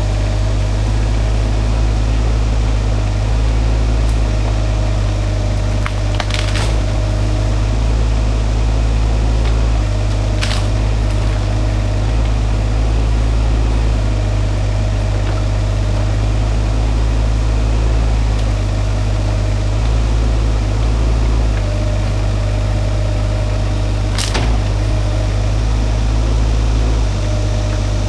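Shantui mini excavator engine running with a steady low hum that swells and eases as it works, with three sharp cracks of wood splitting spread through it.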